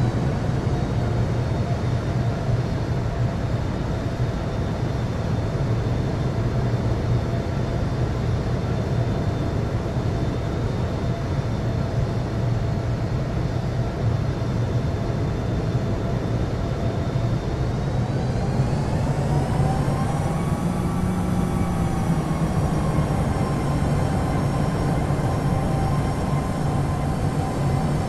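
Jet airliner engines running with a steady whine over a broad rumble; about two-thirds of the way through, the engines spool up, the whine rising in pitch over a couple of seconds and then holding higher.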